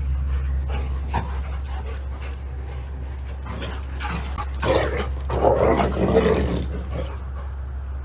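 A dog barking in a quick run of barks a little past the middle, over a steady low hum.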